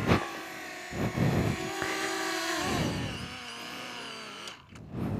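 Small camera drone's motors and propellers whirring, a whine of several tones that shifts up and down in pitch, with a few low bumps.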